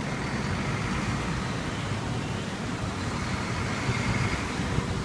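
Steady street traffic noise, an even rumble of passing vehicles.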